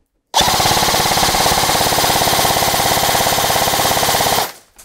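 ICS CXP-UK1 MTR airsoft electric rifle firing one long full-auto burst, its gearbox cycling in a fast, even rattle that starts about a third of a second in and cuts off sharply after about four seconds.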